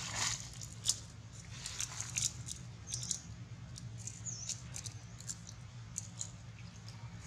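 Macaques biting and chewing food: irregular small crisp crunches and clicks over a steady low hum.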